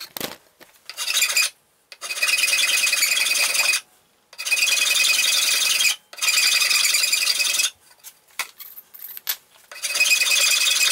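Hand file drawn in long strokes across a cast aluminium motorcycle top triple clamp, filing its surface flat: a short stroke, then four long strokes of about a second and a half to two seconds each, with brief pauses between them.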